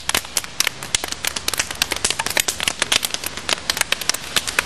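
Rapid, irregular slaps of hands and forearms striking and blocking as several pairs practise Wing Chun partner drills: many sharp smacks a second, overlapping.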